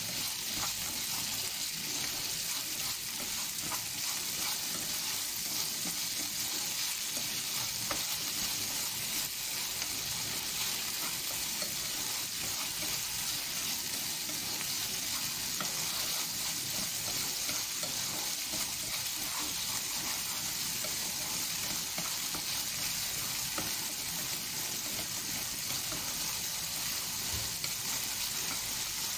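Diced pork and onion sizzling steadily as they fry in a nonstick frying pan, with light scattered clicks of chopsticks stirring through them.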